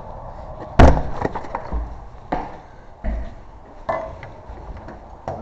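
Sharp knocks and duller thuds against a wooden door, four strikes about one and a half seconds apart, the first the loudest: a putty knife and crowbar being tapped and levered at the door gap to force back a knob lock's latch.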